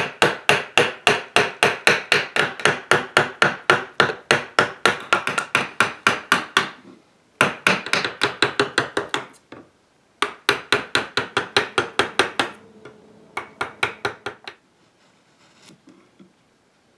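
Mallet driving a wood chisel in quick, regular blows, about four to five a second, chopping waste out of thick wood. The blows come in long runs with short pauses and stop about two seconds before the end, leaving only faint paring sounds.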